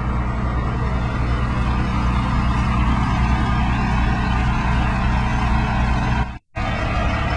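Heavy diesel truck engine running steadily with a low, even hum. The sound cuts out for an instant about six seconds in.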